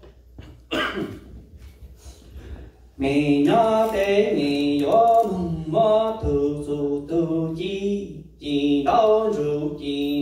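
A man chanting a Hmong txiv xaiv funeral lament into a microphone, in long held notes that step between a few pitches. A brief throat clearing comes about a second in.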